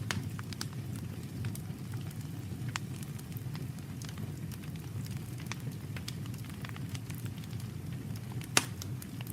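Campfire burning: scattered crackles and sharp pops of burning wood over a steady low rumble, with one loud pop near the end.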